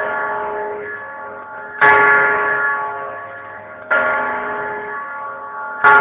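A single large bell tolling slowly for remembrance: three strokes about two seconds apart, each ringing on and fading before the next.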